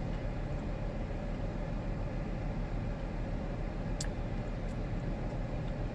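Steady low hum inside a parked car's cabin, with a few faint clicks about four to five seconds in.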